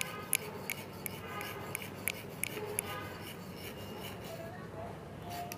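Metal spoon scraping and tapping against a stainless steel mesh strainer while pressing mango pulp through it: a series of light scrapes and clicks, about three a second, that thin out after about three seconds.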